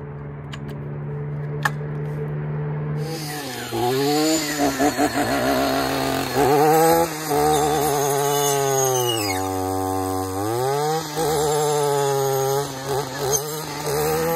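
Echo PAS-2620 two-stroke power head with a brush-cutter blade, idling steadily, then revving up and down with a wavering pitch as the blade cuts low brush. The throttle eases off briefly about two-thirds of the way through, then opens again.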